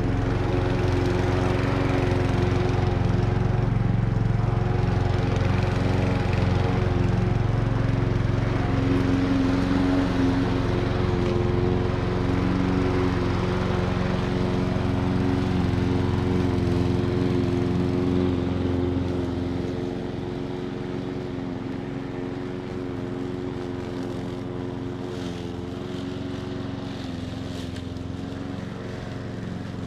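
Old Hecht walk-behind lawn mower running steadily while cutting grass. It becomes noticeably quieter about two-thirds of the way through as it moves away.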